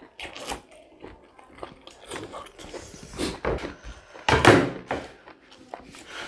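Close-miked eating at a table: mouth sounds of chewing, plus fingers handling food on plates and lettuce leaves, with one louder burst of handling noise about four and a half seconds in.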